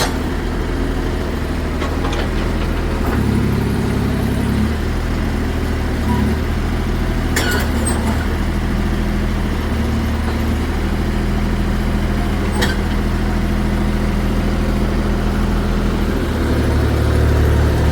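Hitachi hydraulic excavator's diesel engine running steadily, pulling harder for a couple of seconds about three seconds in and again near the end, with two sharp metallic knocks about seven and thirteen seconds in.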